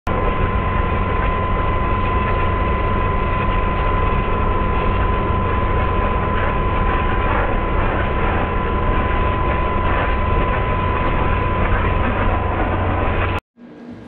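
Steam jetting out of a propane-fired monotube coil boiler over a vortex ring burner: a loud, steady rushing roar carrying a thin, steady high tone. It cuts off suddenly near the end.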